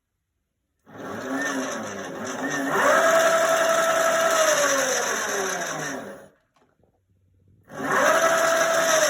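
Tuttio Soleil01 electric dirt bike's motor whining under throttle in sport mode: the pitch climbs, holds steady for a couple of seconds, then slides down as the throttle is released and the wheel coasts down. A second throttle burst starts near the end, its whine rising again.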